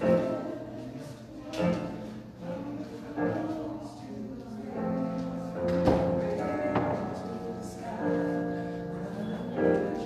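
Music with held chords, each renewed by a stronger attack every second or two.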